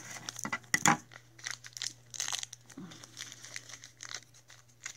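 A plastic blind-bag wrapper being torn open and crinkled by hand: a run of irregular crackles, with a louder tear about a second in.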